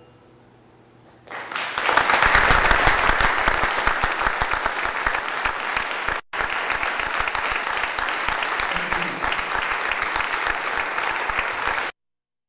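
An audience applauding after the last notes of the piece fade. The clapping starts suddenly about a second in, breaks off for an instant midway, and cuts off abruptly near the end.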